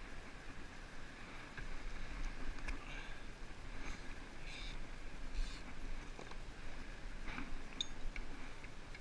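A pollock being swung aboard a plastic sit-on-top kayak and handled, giving scattered light knocks, clicks and short rustling splashes over low water and wind noise on the microphone.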